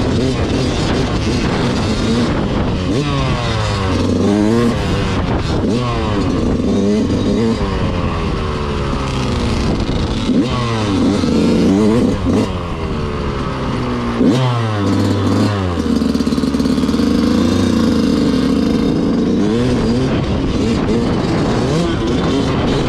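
Motorcycle engine revving, its pitch climbing and falling again and again as it accelerates and eases off, with a steadier stretch about two-thirds of the way through.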